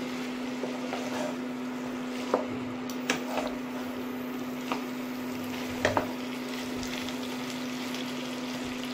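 Chicken pieces and vegetables sizzling in a nonstick frying pan as they are stir-fried with a spatula, with a few sharp knocks of the spatula against the pan.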